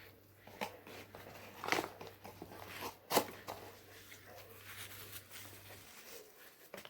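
Close-miked eating of McDonald's fast food: crunching bites and chewing with scattered crackles and paper rustling, the two sharpest crunches about 2 and 3 seconds in.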